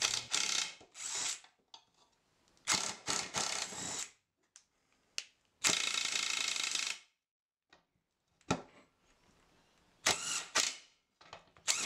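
Cordless impact driver hammering in several short bursts as it undoes the bolts holding the mower blades to the blade disc, the longest burst in the middle lasting about a second and a half. Sharp clicks in between.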